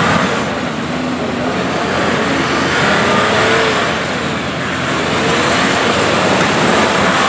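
Nissan Patrol off-road 4x4 engine running while driving, its pitch drifting up and down, under a steady rush of driving noise.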